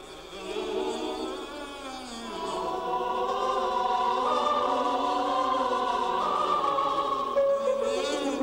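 A choir singing long held notes, several voices layered and sliding slowly between pitches; it is softer for the first two seconds, then swells fuller.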